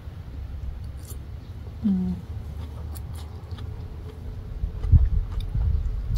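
Close-up eating sounds: a person chewing and slurping thin rice noodles and papaya salad, with small wet mouth clicks. There is a short hummed 'mm' about two seconds in and louder mouth sounds near the end, over a low rumble.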